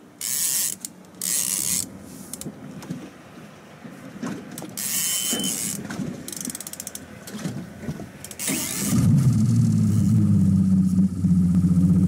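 Conventional fishing reel on a heavy rod giving several short bursts of reel noise, each about half a second, while fighting a hooked white sturgeon. About nine seconds in, a boat motor starts and runs steadily, louder than the reel.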